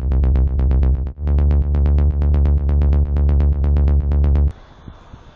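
Electronic instrumental beat with a heavy bass and a fast, even ticking rhythm on top, cutting off suddenly near the end to leave faint outdoor background.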